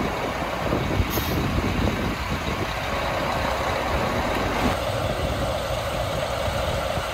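Diesel engine of a JR Hokkaido DE15 diesel-hydraulic locomotive idling steadily, with a brief high hiss of air about a second in.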